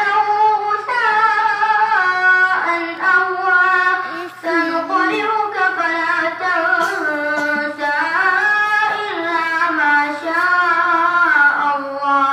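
A single high voice reciting the Quran in Arabic in the melodic tajweed style, drawing out long ornamented notes that glide up and down, with a short pause for breath about four seconds in.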